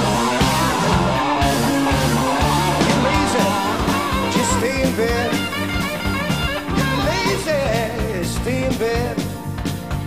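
Rock music with guitar, drums and singing.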